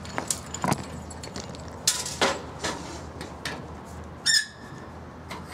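Sharp clicks and metal knocks of a fire hose coupling and intake fittings being handled at a fire engine's pump panel, with one short high squeak about four seconds in.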